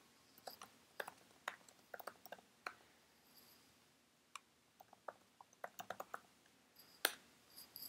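Faint typing on a computer keyboard: irregular key clicks in short runs, with one louder click about seven seconds in.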